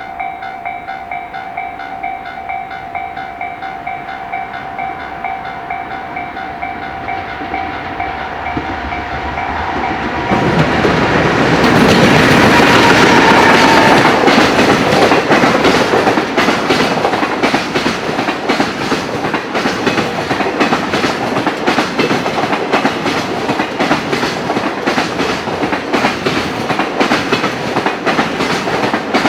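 Level crossing warning bell ringing in a steady, even pulse. About ten seconds in, a fully loaded container freight train arrives and drowns it out: a falling whine as the locomotive passes, then the fast, regular clatter of container wagon wheels over rail joints.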